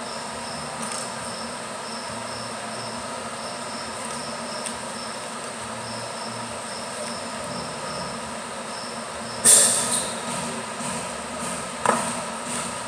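Steady machine hum with a faint pulsing high whine, then two sharp metallic clanks of scrap motor parts being handled on a metal workbench, the louder one about two-thirds of the way in and another near the end.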